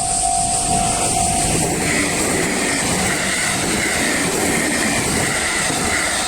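A train passing close over a level crossing, with rolling wheel-and-rail noise and a wavering high whine from about two seconds in. Before that the crossing's warning bell rings in an even pulse, then is drowned out by the train.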